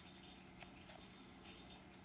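Near silence with faint scattered soft ticks and scuffs from a cat and kitten play-fighting, over a low steady hum.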